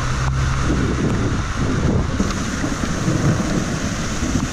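Squall wind and heavy rain lashing down in a summer storm. The wind buffets the microphone in low, rumbling gusts over a steady hiss of rain.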